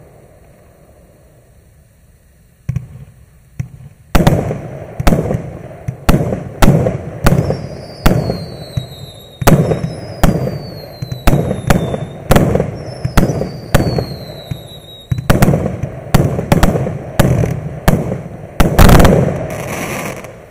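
Maxsem MC134 100-shot, 0.8-inch-calibre firework cake firing. After a quiet first few seconds the shots start and come quickly, about two sharp bangs a second, with several high whistles falling in pitch through the middle and the loudest close cluster of bangs near the end.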